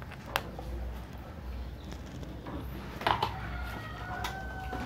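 A faint pitched bird call, held for about a second and a half near the end, over a low steady hum, with a single click about half a second in.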